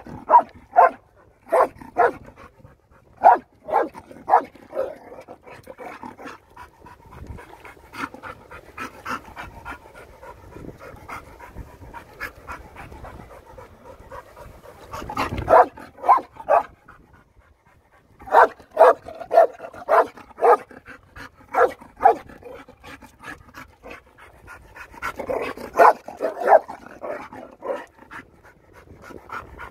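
Dog barking excitedly in repeated bursts of short, sharp barks, with quieter stretches between the bursts.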